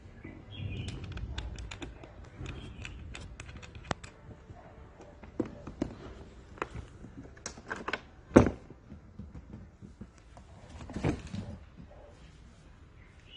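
Irregular clicks and light knocks of metal parts and tools being handled while fitting parts to an electric scooter's seat, with one sharp knock about eight seconds in and a brief clatter about eleven seconds in.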